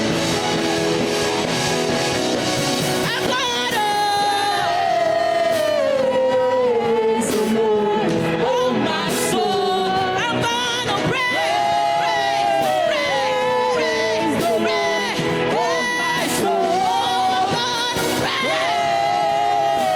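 Live gospel band playing, with a solo voice coming in a few seconds in and singing long, sliding, descending runs over the band.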